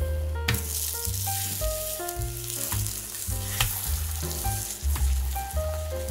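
Cabbage, carrot and egg mixture sizzling in oil in a rectangular egg-roll pan as it is folded over with a spatula. The sizzling comes in about half a second in, and the spatula gives a few sharp taps on the pan.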